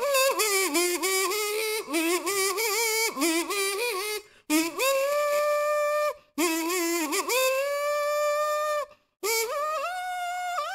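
Solo kazoo playing a pop-song melody: a buzzy, hummed tune in short phrases broken by a few brief silent gaps, with a long held note in the second half.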